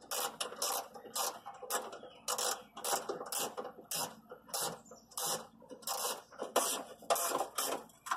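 7/16-inch ratchet wrench clicking in short repeated strokes, about two to three a second, as it tightens the battery hold-down bolts.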